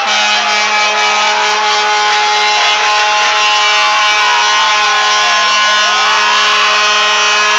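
Parade vehicles sounding off: a long, steady horn blast starts right at the beginning, while sirens wail slowly up and down over it.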